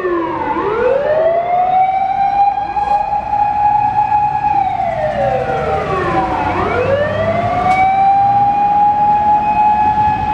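Japanese fire engine siren wailing: it climbs to a high steady note, holds it for about four seconds, slides down, then climbs and holds again about six and a half seconds in. A low engine and road rumble runs beneath it.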